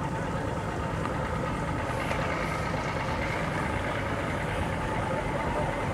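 Engines idling steadily.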